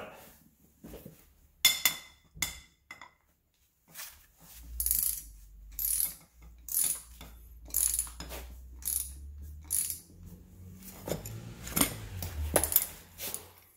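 Ratchet wrench clicking in short runs about once a second as it cranks a bolt through a homemade socket-and-washer puller, pressing an old rubber bushing out of a car's rear lower control arm. A low steady hum lies underneath from about four to ten seconds in.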